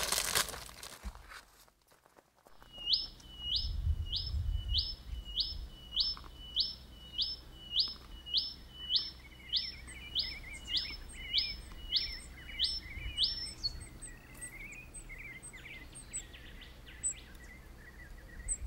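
A bird calling a regular series of about twenty short rising whistles, roughly two a second, starting a few seconds in and stopping after about ten seconds. Other birds chirp and twitter softly over it.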